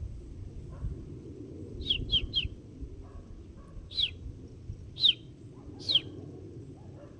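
A bird calling with short, high, downward-sliding chirps: three in quick succession about two seconds in, then three single chirps about a second apart. A steady low rumble runs underneath.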